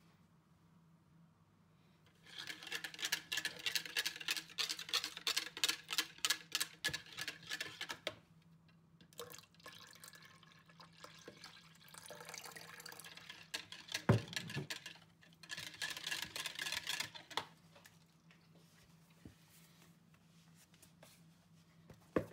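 Metal balloon whisk beating a liquid mixture in a plastic jug, a rapid run of clicking strokes against the jug's sides for several seconds. Water is then poured into the jug with a hissing splash, there is one loud thump, and a shorter burst of whisking follows.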